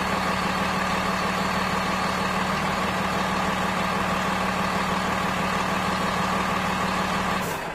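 A steady engine-like hum, as of an engine idling, holding an even pitch throughout, then cutting off suddenly near the end.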